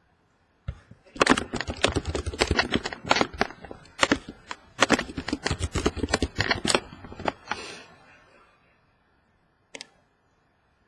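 Rapid typing on a computer keyboard: a dense run of key clicks for about seven seconds, then a single click near the end.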